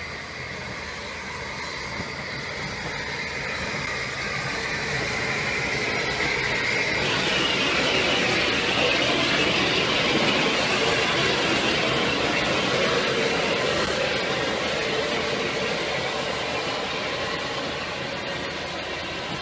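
SR Merchant Navy Class 35006, a three-cylinder 4-6-2 steam locomotive, running past close by, its sound building to its loudest about halfway through and then fading as it moves away.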